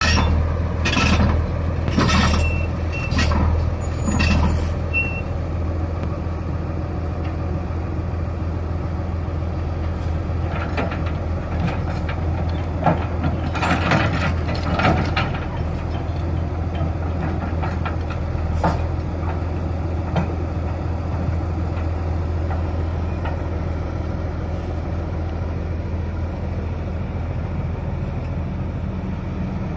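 Ruston-Bucyrus 30-RB dragline running steadily, its engine note low and even throughout. Sharp metallic clanks and rattles from the dragline's rigging and bucket come several times in the first five seconds, again about 13 to 15 seconds in, and once near 19 seconds.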